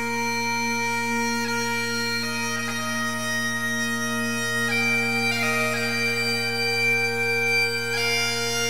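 Bagpipe music: a steady, unbroken drone under a slow melody of long held notes that change every second or two.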